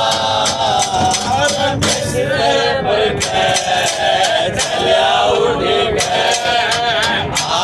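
Men singing a Haryanvi ragni, one loud bending melody line, with sharp percussive beats every second or so.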